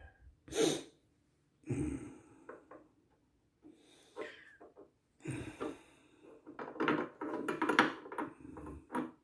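Irregular rustling and rubbing with light clicks, the handling noise of close hand work, coming in scattered bursts that grow busier in the second half.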